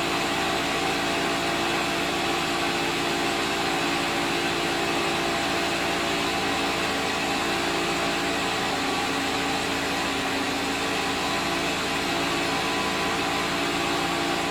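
The engine-driven hydraulic power unit of a 15-inch gauge 'Critter' locomotive running steadily with a hum and whine, dipping slightly in pitch about nine seconds in.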